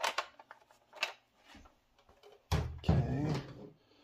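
A hard plastic toy vehicle being handled and set down on a table: a few light plastic clicks, then a louder clunk and scrape about two and a half seconds in.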